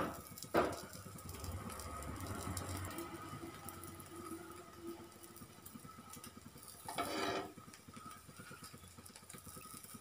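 Steel spatula knocking and scraping on a flat griddle pan as a folded bread omelette is turned: two sharp knocks about half a second apart at the start and a short scrape about seven seconds in, over a low engine-like rumble in the first few seconds.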